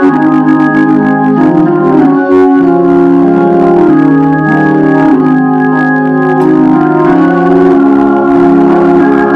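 Two-manual console organ playing sustained chords, the held notes moving to a new chord every second or two.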